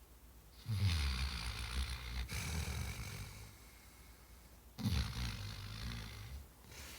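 Sleeping dog snoring: two long, low snores, the first starting about a second in and running about three seconds, the second starting about five seconds in.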